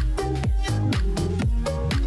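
Background electronic dance music with a steady, driving beat and a repeating bass line.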